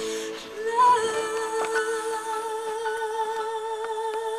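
A girl humming one long held note with a slight waver, sliding up into it about a second in. Light clicks from hands on the camcorder sound through it.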